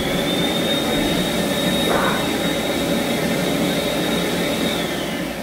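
Electric hand dryer blowing, a steady rush of air with a high motor whine that winds down near the end as it shuts off. The dryer is weak: it does not dry the hands.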